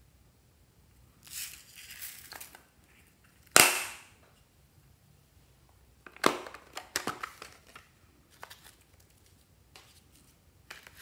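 Small plastic cases being handled. There is a crinkly rustle, then a loud sharp snap about three and a half seconds in, then a quick run of clicks and rattles around six to seven seconds in.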